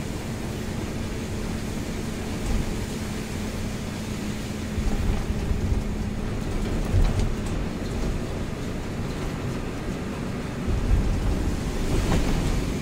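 Mitsubishi Fuso truck heard from inside the cab while driving in the rain: a steady engine hum under the hiss of tyres on the wet road and rain. A few heavier low rumbles come through now and then.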